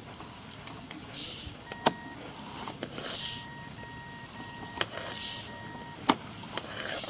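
Sewer inspection camera push rod being fed along the line: a hissing swish about every two seconds, with several sharp clicks between them.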